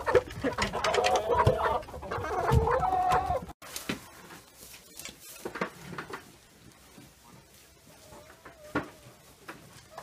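A flock of chickens and roosters clucking and calling loudly, cut off abruptly about three and a half seconds in. Quieter scattered knocks and rustles follow.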